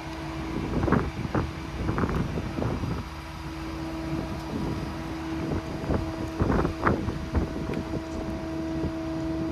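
Ford F-550's 6.7 Powerstroke diesel idling with the PTO engaged for the crane's hydraulics: a steady low rumble with a hum that grows stronger about three seconds in. Several short knocks and clicks are scattered through it.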